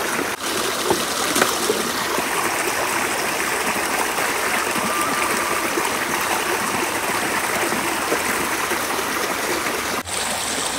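Small rocky creek running over stones: a steady rush and trickle of water.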